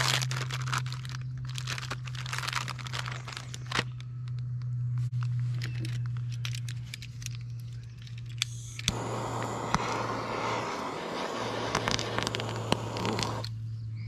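Plastic packaging crinkling and tearing as provolone slices are unwrapped, then about nine seconds in a loud, even hiss that starts and cuts off abruptly after about four and a half seconds, over a constant low hum.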